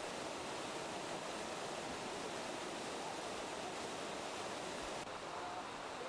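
Waterfall rushing steadily, a constant hiss of falling water; about five seconds in the upper hiss softens slightly.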